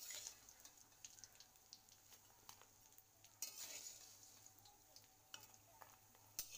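Faint scraping and tapping of a steel spatula against an aluminium kadai as fried fish heads are stirred and turned in a little oil, with a light sizzle underneath; a burst of denser scraping comes about halfway through.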